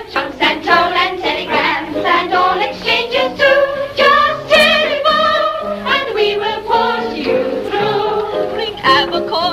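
Women singing a cheerful song together over musical accompaniment, with a wavering vibrato on held notes.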